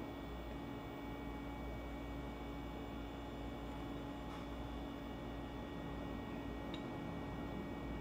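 Steady electrical hum with an even background hiss, and two faint clicks in the middle.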